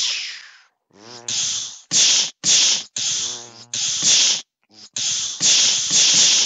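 A person making lightsaber sounds with their mouth: a quick run of about six hissing, voiced 'pssh' bursts with short gaps, standing in for blade swings and clashes.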